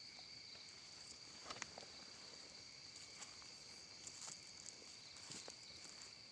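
Faint, steady chirring of insects holding two high pitches, with a few faint clicks and rustles scattered through.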